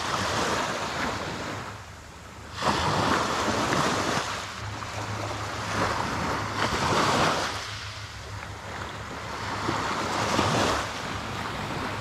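Small waves breaking and washing up a sand and pebble beach, swelling and falling away every few seconds, with wind rumbling on the microphone underneath.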